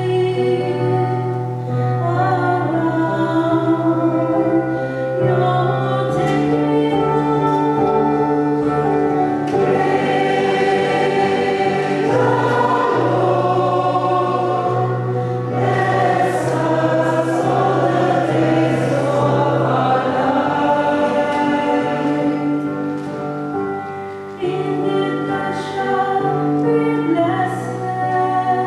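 A mixed choir of men and women singing a hymn, with long held low notes sounding underneath.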